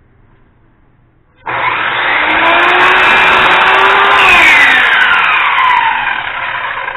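Radial arm saw starting suddenly about a second and a half in and cutting a wooden frame piece, then its motor winding down with a falling whine.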